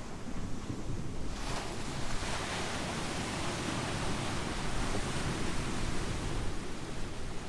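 Pacific surf washing over a boulder and pebble beach: a wave surges in about a second in, a long rushing hiss of water over the stones that slowly eases off, over a low rumble of wind on the microphone.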